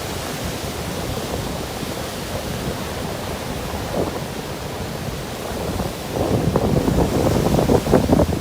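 Ocean surf washing onto a beach, with wind buffeting the microphone; the gusts grow stronger about six seconds in.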